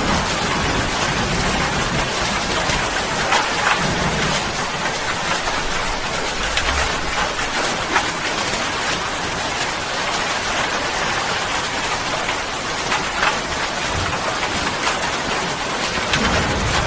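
Steady rain, an even hiss with scattered sharper drop splashes and a few brief low swells.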